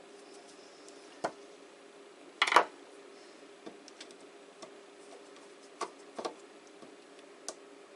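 Small clicks and knocks of tools and parts being handled while the rear sight is screwed onto a Crosman 2240 CO2 air pistol, about half a dozen, the loudest a sharper knock about two and a half seconds in. A faint steady hum runs underneath.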